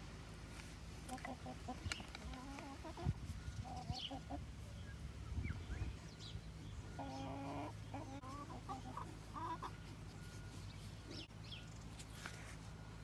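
Domestic hens clucking in two bouts, about a second in and again from about seven to nine and a half seconds in, over a faint steady low hum.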